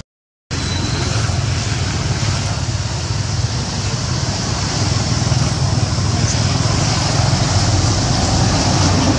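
Steady outdoor background noise, a low rumble with a hiss over it, starting about half a second in after a brief dropout.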